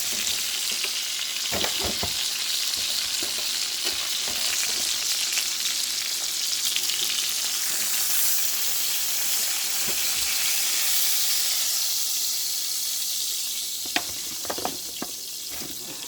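A big, thick roast searing in a hot pan, sizzling steadily. The sizzle dies down from about twelve seconds in, with a few sharp clicks near the end.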